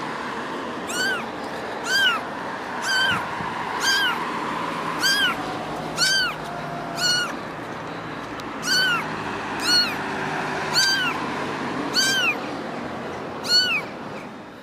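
A small kitten meowing over and over, about once a second: short, high-pitched mews that rise and fall in pitch, with a brief pause in the middle.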